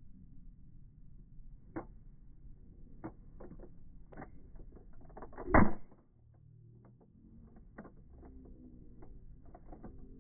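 A Nerf gun firing a foam dart once, a single loud short pop about halfway through, with lighter clicks and handling knocks before it.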